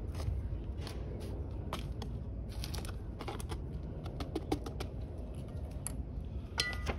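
A small hand cultivating tool scratching and scraping through potting soil in a plastic pot, making irregular quick clicks and scrapes, several a second.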